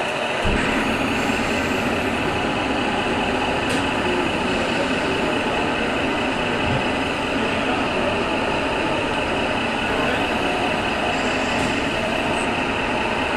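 Radio-controlled model tractor loader running, its electric drive and hydraulic pump giving a steady whirring hum while it drives up and lifts its loader arm.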